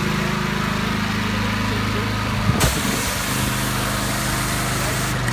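Small engine of a gas pressure washer running steadily, with the even hiss of the spray over it. There is a short knock about two and a half seconds in, and the engine note shifts slightly just after it.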